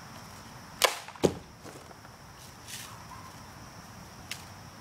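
Daisy multi-pump BB air rifle fired once: a sharp crack, then a second sharp crack less than half a second later, and a faint click a few seconds on, over a steady high drone of insects.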